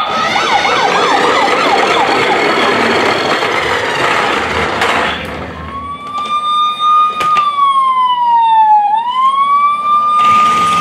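Battery-operated toy police car's electronic siren, loud: a fast warbling yelp of about three sweeps a second for roughly five seconds, then a slower wail that rises and falls.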